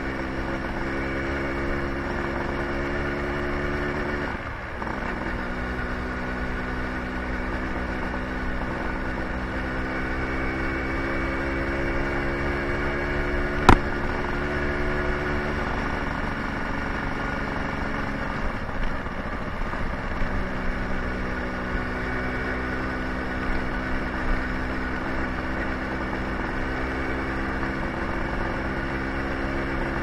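Suzuki motor scooter's small engine running under way. The engine note dips briefly about four seconds in as the throttle eases, then holds steady. A single sharp click comes about halfway through.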